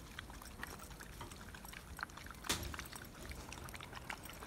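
Four young dogs eating broth-soaked bread from a metal pan: wet chewing and lapping with many small irregular clicks, and one sharper click about two and a half seconds in.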